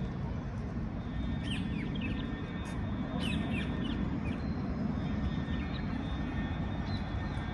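Small birds chirping in short, quick calls, several in the first few seconds and fewer later, over a steady low rumble of city traffic.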